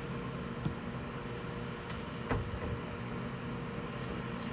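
Steady low household background hum with a faint steady tone, broken by two soft taps, one under a second in and one a little past two seconds.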